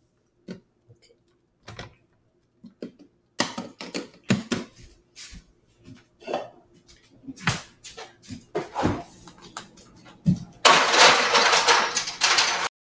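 Blender crushing ice and fruit: irregular knocks and clatter of ice in the jar, then about two seconds of loud, steady grinding near the end that cuts off suddenly.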